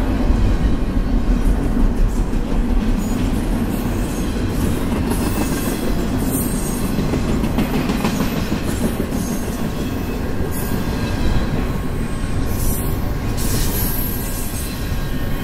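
Double-stack intermodal well cars of a CSX freight train rolling past close by: a steady, low rumble of steel wheels on rail, with brighter high-pitched patches now and then in the second half.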